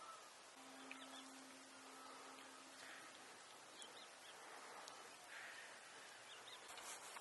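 Near silence: faint outdoor ambience with a few faint, short bird chirps and a faint steady hum for a couple of seconds early on.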